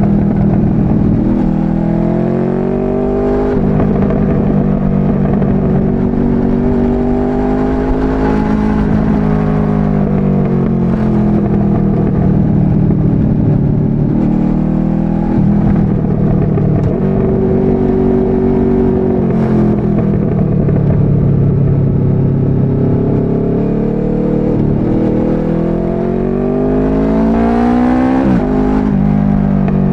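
Motorcycle engine under way, its pitch climbing and falling as the rider accelerates and eases off, with abrupt drops in pitch at gear changes, about three seconds in, around nineteen seconds and near the end.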